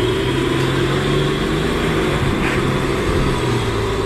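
Heavy diesel truck engine of a fully loaded Mitsubishi Fuso running under load as it climbs onto a ferry's loading ramp, a steady low drone that rises and falls slightly in pitch, over a constant hiss.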